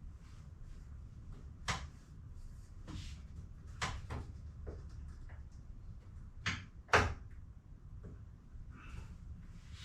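Scattered clunks and clicks of tools and metal parts being handled during work, at irregular times, the loudest about seven seconds in.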